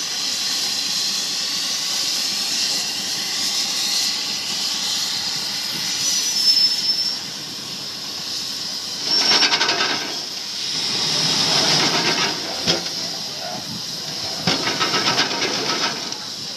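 Bucyrus-Erie 50-B steam shovel hissing steam as it works, with louder stretches of rapid, evenly beating exhaust about nine and eleven seconds in and again near the end, and a single sharp clank in between.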